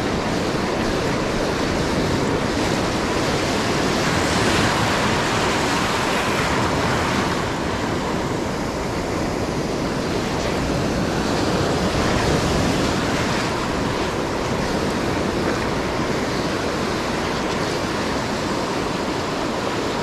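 Ocean surf breaking and washing up the beach, with wind blowing across the microphone: a steady rushing noise.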